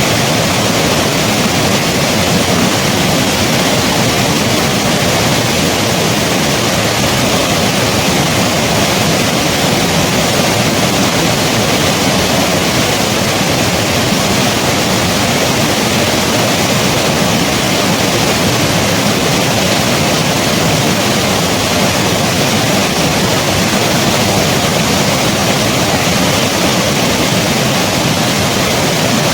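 Snow-melt river rushing over stones, a loud, steady roar of water.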